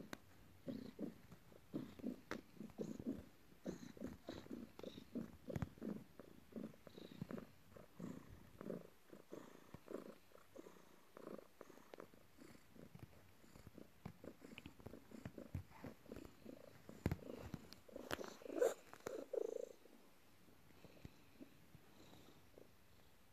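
Domestic tabby cat purring close by in a steady rhythm, stopping about twenty seconds in.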